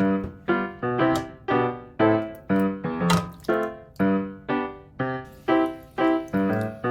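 Background piano music: evenly paced notes or chords, about two a second, each struck and left to fade.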